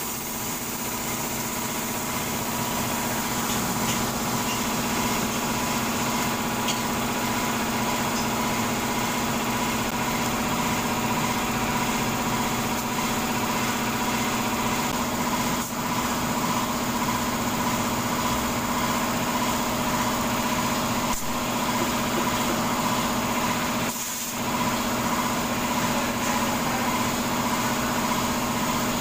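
A small engine running steadily with an even hum, building up over the first few seconds and then holding level.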